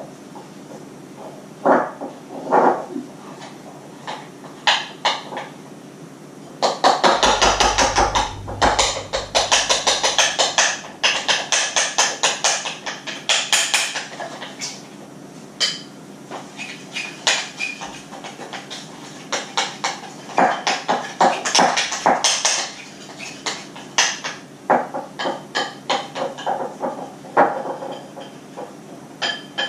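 Kitchen utensils knocking against a mixing bowl: scattered knocks, with a fast dense run of strokes from about seven to fourteen seconds in, like vigorous stirring.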